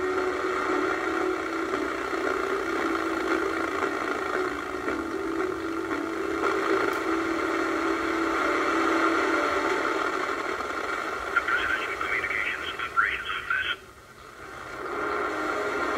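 TV broadcast sound received on a Regency scanner tuned to 71.75 MHz wide FM: a steady droning background with hiss, between stretches of narration. The sound dips away briefly near the end, then comes back.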